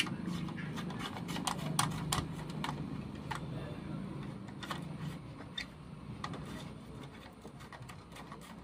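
Scattered small clicks and rattles of speaker wire being handled and fastened into the amplifier's speaker terminals, busiest in the first few seconds and thinning out, over a low steady hum.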